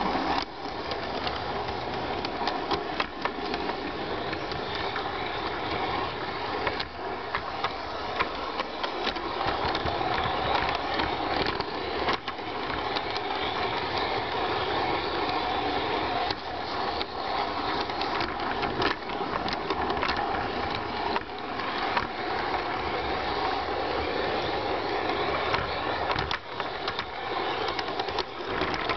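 LGB garden-scale model train running along its track: a steady whir of the electric motor and gearing, with frequent irregular clicks from the wheels passing over rail joints and points.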